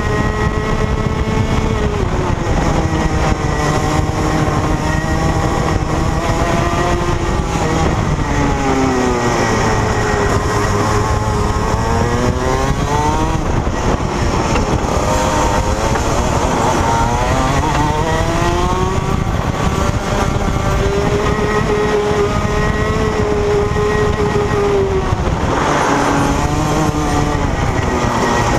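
Senior Rotax Max kart's 125cc two-stroke single-cylinder engine at race pace, heard onboard, its revs falling and climbing again several times through the lap.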